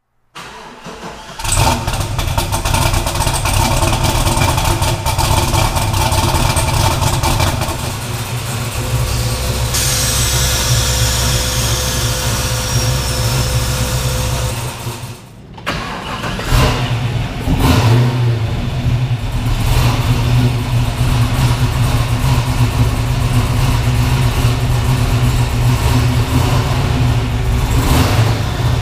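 1969 Camaro's LS3 V8 starting and running, with loud exhaust. It cranks and catches about a second in, then idles, and the throttle is blipped several times in the second half.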